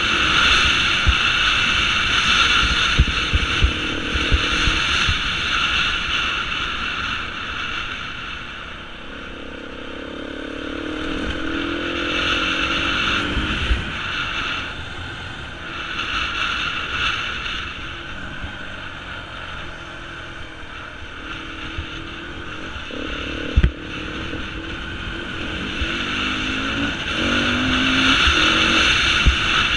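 Beta 350 four-stroke enduro motorcycle being ridden, its engine pitch rising and falling as the throttle is opened and eased off, loudest near the start and end. Wind buffets the helmet-mounted microphone throughout, with one sharp knock a little past two-thirds of the way through.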